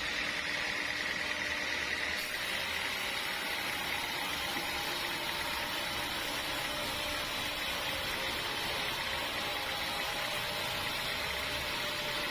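Sawmill machinery running steadily: an even mechanical hum under a hiss, which brightens slightly about two seconds in.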